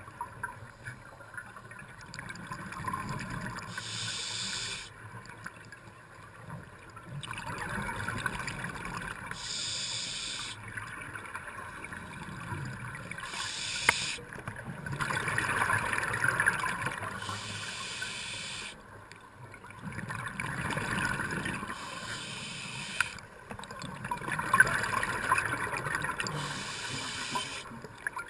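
A scuba diver breathing through a regulator underwater. A short hiss of inhaling comes about every four to five seconds, each followed by a few seconds of gurgling exhaled bubbles.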